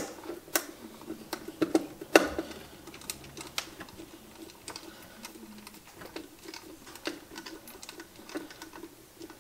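Screwdriver tightening the small green ground screw on a Badger 15SS garbage disposal's metal wiring plate: irregular light clicks and ticks of the tool, screw and wire against metal, a few sharper ones in the first few seconds.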